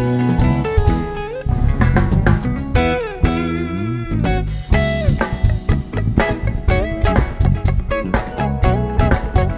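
Live band playing, an electric guitar line over a drum kit, with a few sliding guitar notes about three seconds in.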